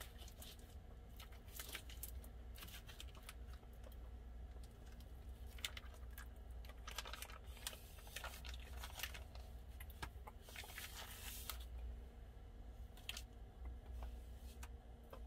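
Plastic meat packaging crinkling and rustling, with light irregular clicks and scrapes of a knife and fork as seasoned steak is cut and lifted onto a plate. A low steady hum runs underneath.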